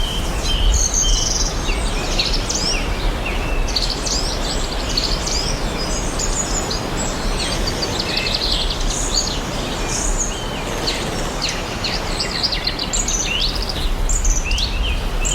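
Forest ambience: several songbirds chirping and calling in quick, overlapping phrases, many with fast downward-sweeping notes, over a steady background hiss and low rumble.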